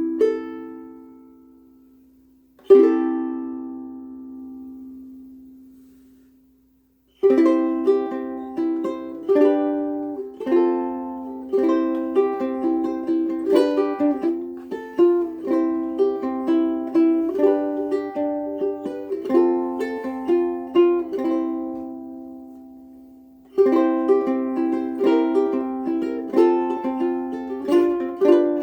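Kiwaya Luna LC-2 concert ukulele being played solo. Two chords ring out and fade, then after a brief pause a steady run of picked and strummed notes follows. It stops once more and starts again near the end.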